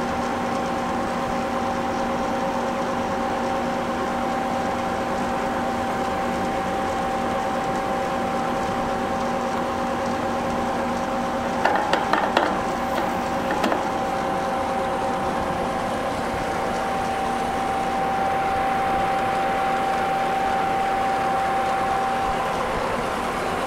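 Jet BDB-929 belt-drive bench lathe running steadily with an even hum. A few sharp clicks and clanks come a little past the middle, as its controls are worked.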